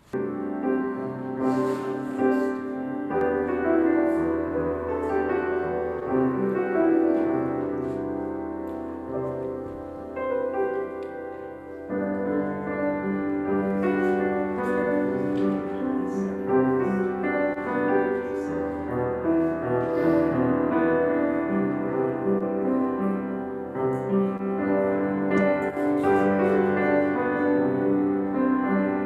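Piano music played slowly in held chords over a sustained low bass note. It starts abruptly, eases off about ten seconds in, and picks up with a new phrase a couple of seconds later.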